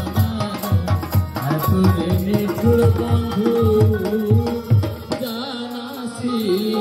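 Live Baul folk music: a hand drum beating a quick steady rhythm under singing and held melodic notes. The drum stops about five seconds in while the singing and held notes carry on.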